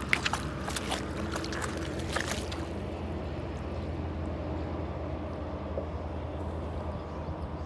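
Water splashing and sloshing as dogs wade in shallow lake water, several sharp splashes in the first two seconds or so, then only a steady low rumble.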